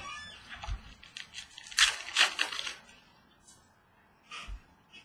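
Trading cards being handled, with a burst of crackly plastic or foil rustling about two seconds in and a few light taps of cards on a wooden tabletop.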